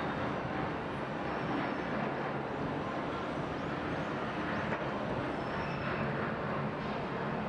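Steady outdoor background noise with a faint machinery hum, without distinct events.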